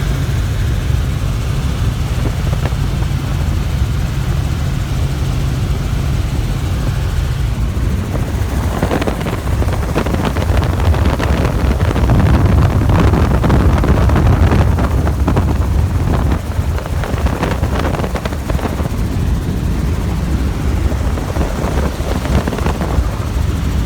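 Helicopter running: a steady low drone throughout, with a rougher, noisier rush joining about eight seconds in.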